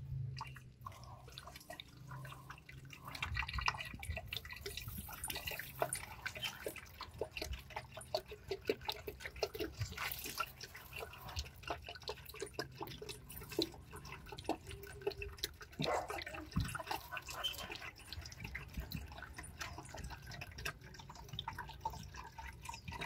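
Green engine coolant poured in a steady stream from a jug into a plastic funnel, splashing and dribbling as it drains into the coolant reservoir.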